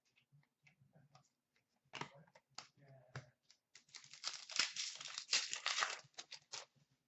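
Hockey card pack's foil wrapper being torn open and crinkled by hand. Scattered small crackles come first, then from about four seconds in a dense stretch of crinkling that is the loudest part.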